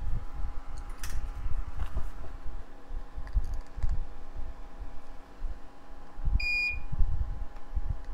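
Dull low bumps and knocks from a circuit board and a solder spool being handled on a workbench, over a faint steady hum. About six and a half seconds in comes a single short electronic beep.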